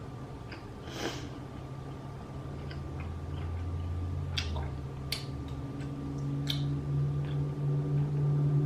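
Close-up eating sounds of chewy rice cakes and noodles: wet chewing and squishing with a few sharp mouth smacks, over a low steady hum that grows louder near the end.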